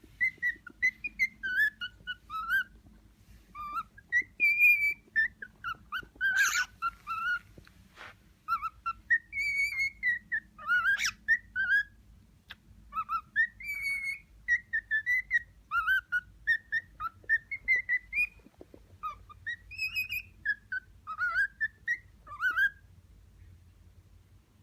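Young male cockatiel singing his courtship song to a female: a long string of short whistled notes that glide up and down, stopping near the end.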